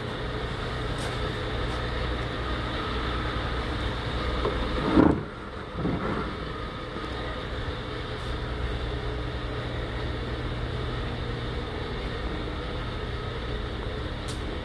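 Steady low mechanical hum, with a brief louder sound about five seconds in.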